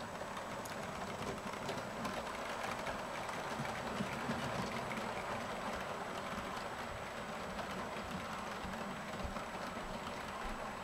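Model steam locomotive and passenger coaches running along the layout track: the steady whir of the locomotive's electric motor and the rumble of the wheels on the rails.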